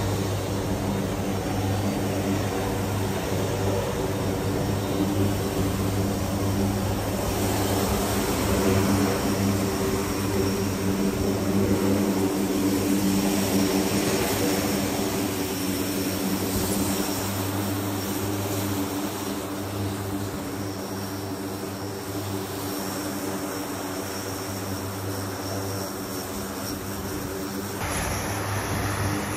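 Steady drone of a C-130J's turboprop engines and six-bladed propellers heard from inside the cargo hold, a loud even hum with a strong low tone. About 28 s in, the sound changes abruptly.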